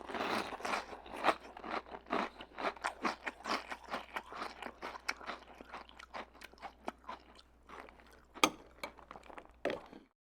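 Someone chewing a mouthful of crunchy cereal, a rapid run of short crunches that thins out over the second half, with one louder crunch near the end before the sound stops abruptly.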